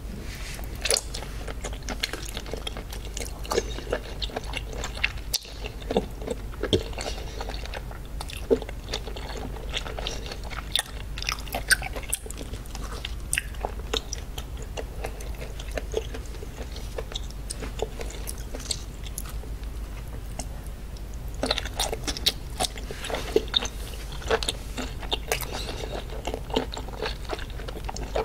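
Close-miked chewing and biting of octopus dipped in chili sauce: a steady run of wet, sticky mouth clicks and smacks, busier for a stretch near the end.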